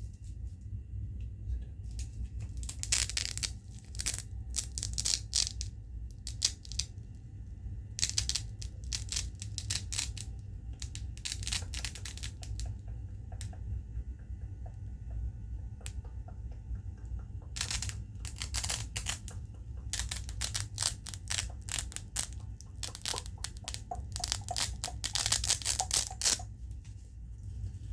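Fast runs of sharp clicks and crackly ticks from a pen being gripped and clicked. They come in bursts of a few seconds with short pauses between, over a steady low hum.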